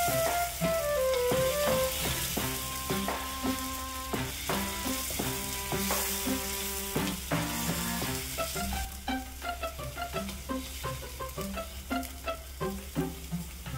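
Chili paste sizzling in an aluminium wok as it is stirred, with the wooden spatula scraping and knocking against the metal many times. Background music with a melody plays along.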